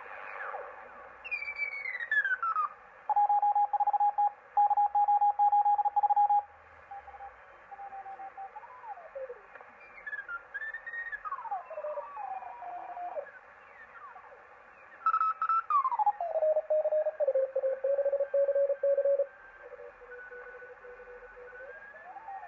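Homebuilt superheterodyne receiver being tuned slowly across the 80-metre amateur band over a band of receiver hiss. Whistling carriers glide down in pitch as the tuning sweeps past them, and twice a Morse code signal settles at a steady pitch and keys on and off for a few seconds.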